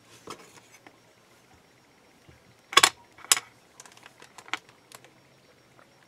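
Sharp clicks and taps of a thin metal clay blade against the brass bracelet form and the hard work surface while clay ends are trimmed: two loud clicks about halfway through, half a second apart, then several lighter ticks.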